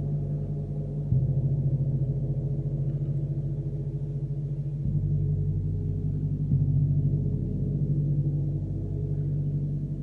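32-inch bubble drop gong played with a soft mallet: a deep, sustained ringing of several low tones with a slight waver. It is struck again about a second in, near five seconds and at about six and a half seconds, each stroke shifting the mix of tones.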